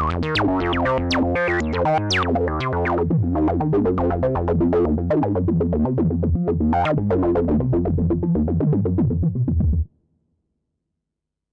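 Korg Modwave wavetable synthesizer playing a preset: a fast rhythmic pattern of short notes over a bass line, with falling pitch sweeps early on. It stops abruptly a little before the end, leaving silence.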